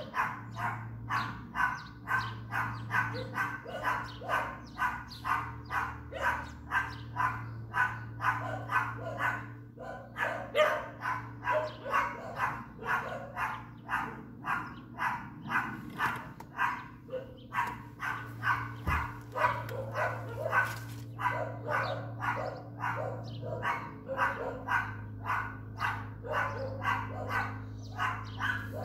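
A dog barking repeatedly and without letup, about two to three barks a second with only brief pauses, over a steady low hum.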